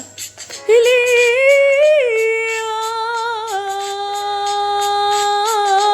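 A woman's singing voice holding one long wordless note. It starts after a brief gap, bends up slightly and then settles lower, held steady.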